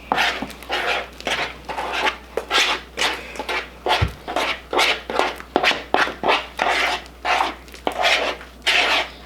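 Slime being stirred in a bowl after activator is added: rhythmic scraping and squishing strokes, about three a second, with a single low thump about four seconds in.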